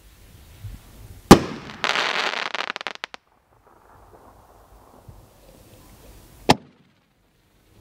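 Consumer fireworks artillery shells: a sharp bang about a second in as a shell bursts, followed by about a second and a half of dense crackling. Near the end comes another single sharp report as the next shell is fired from its mortar tube.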